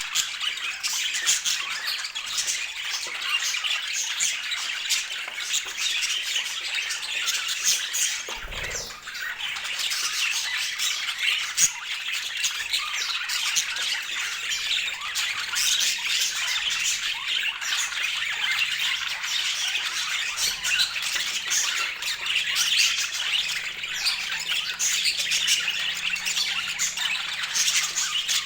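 A flock of budgerigars chattering and squawking, many birds calling over one another without a break.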